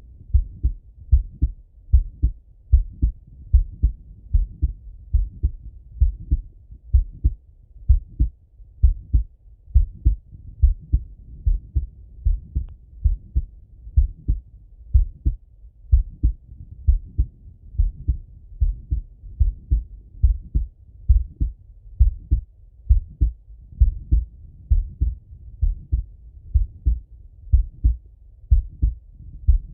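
A man's heartbeat heard through a Littmann stethoscope: low, muffled thuds in a steady, slow rhythm, about one beat a second.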